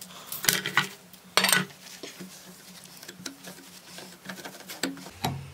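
A few sharp clattering knocks of hand tools being handled on a wooden workbench in the first second and a half, then a cloth rubbing over a steel knife blade with light ticks as the wet-sanded blade is wiped down.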